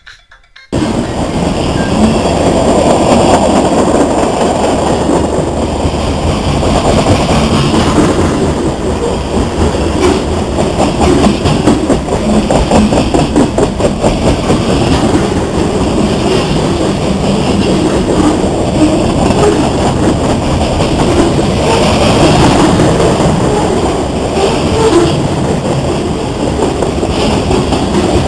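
CSX freight train rolling past, the cars' wheels running steadily over the rails. The sound cuts in suddenly about a second in.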